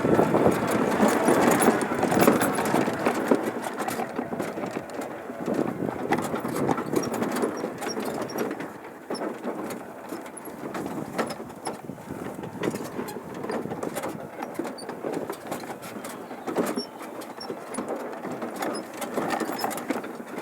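Mini tractor rolling downhill with its engine off, coasting on gravity alone: a continuous clattering rattle of the body, wheels and loose parts, full of small knocks, gradually getting quieter.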